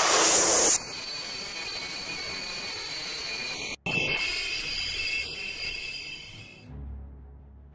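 Jet fighter engine noise. A loud blast in the first second gives way to a steady hissing rush with high whining tones, which cuts out for an instant near four seconds and stops abruptly near seven seconds, leaving a low hum.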